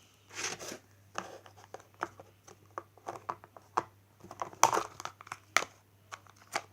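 Jelly cube slime with beads being stretched and squished by hand, making an irregular run of wet clicks, pops and crackles.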